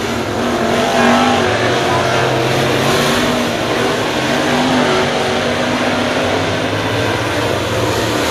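A pack of dirt late model race cars running hard around a dirt oval, several engines at high revs overlapping in a loud, continuous drone that rises and falls as cars accelerate off the corner.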